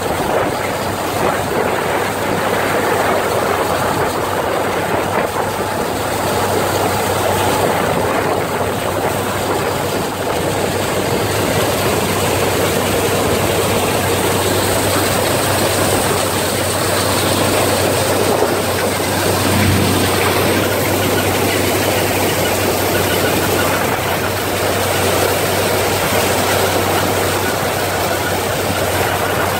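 John Deere 55H combine running while cutting and threshing wheat: a steady, loud mechanical din from its engine and machinery, with a constant low hum underneath.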